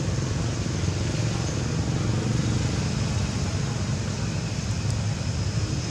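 Steady low rumble of motor vehicle traffic, unbroken throughout.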